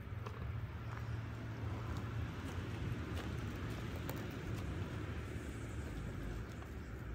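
A steady low hum runs throughout, with a few light crisp clicks of a kitchen knife cutting into a green bell pepper.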